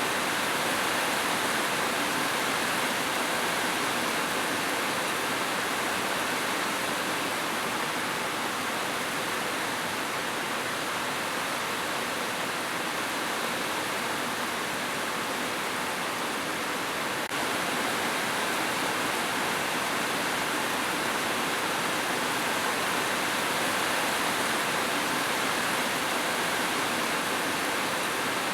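Steady rushing water, an even roar like a waterfall or fast stream, with a slight shift in level about 17 seconds in.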